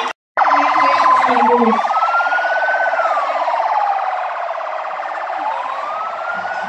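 Emergency-vehicle siren wailing in slow rise-and-fall sweeps, two cycles, with a rough, buzzy tone. It starts just after a brief dropout.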